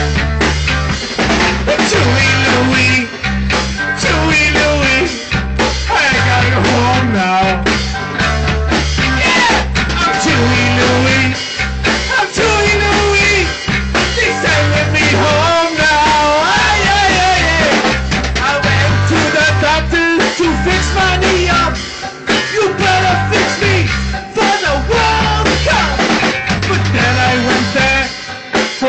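A rock band playing a song at rehearsal: drum kit and guitar over a repeating low-end pattern, with a voice singing.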